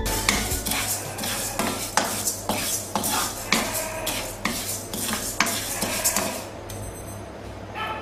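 Raw white rice grains being stirred and scraped around a dry non-stick wok with a wooden spatula: a quick, irregular run of scratchy, rattling strokes that eases off near the end. The rice is being dry-toasted to be pounded into toasted ground rice.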